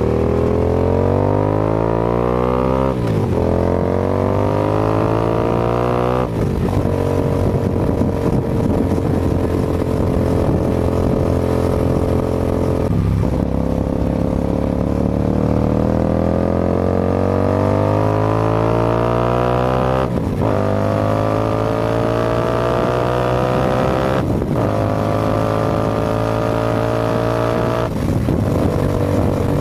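Hyosung GT250R's 250 cc V-twin through a Musarri slip-on exhaust, ridden on the road. The exhaust note rises in pitch through each gear, dips sharply at each shift (about six times), and holds steady where the bike cruises.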